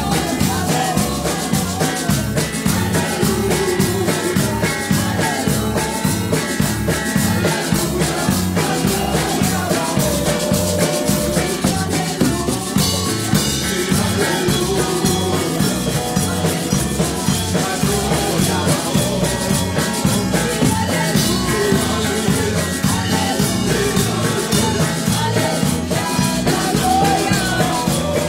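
Live Pentecostal praise music in Spanish: a woman sings lead into a microphone over electric bass guitar and a drum kit keeping a steady beat.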